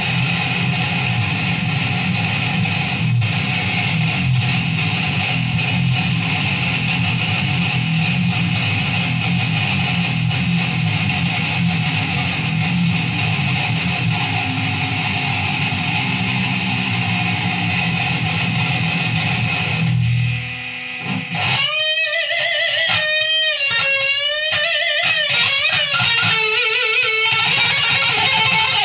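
Electric guitar playing: thick, sustained chords for about twenty seconds, then a brief break and a lead line with wide vibrato and pitch bends.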